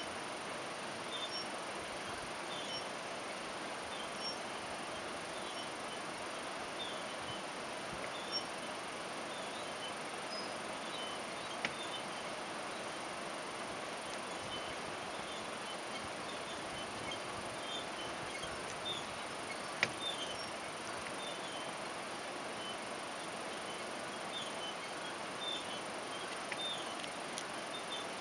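Steady rushing of a mountain creek flowing under a suspension bridge, with faint repeated bird chirps and a few sharp clicks.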